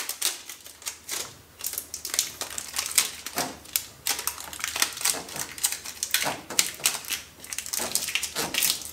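Adhesive tape being pulled off the roll and wound around a joint in a washing machine's plastic drain hose: a rapid, irregular crackle of tape peeling away, with clicks throughout.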